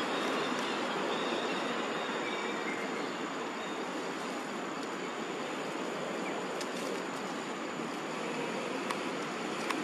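Steady rushing outdoor background noise with a thin, steady high whine above it and a few faint clicks in the last few seconds.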